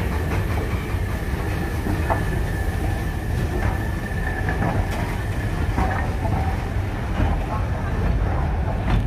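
Two coupled steam locomotives, a BR Standard Class 2MT 2-6-0 and a BR Standard Class 5MT 4-6-0, moving slowly past at close range. There is a steady low rumble with scattered metallic clanks, and a thin high squeal that stops about six seconds in.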